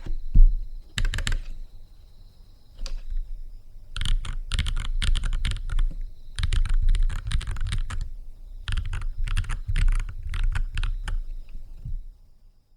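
Typing on a NuPhy Halo 65 mechanical keyboard fitted with Gateron Baby Kangaroo tactile switches: quick runs of key clacks in several bursts with short pauses between them.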